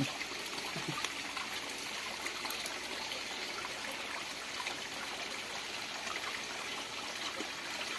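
Steady trickling and light splashing of water around a hand-held shrimp net being worked in the water.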